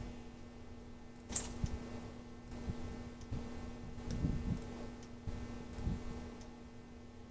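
Computer mouse clicking: one sharp click about a second and a half in, then a few fainter clicks and soft low thumps, over a steady low electrical hum.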